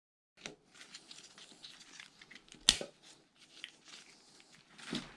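Gloved hands working a timing chain onto cam sprockets: faint rubbing and rustling with light metal clicks, the loudest a single sharp click about two and a half seconds in.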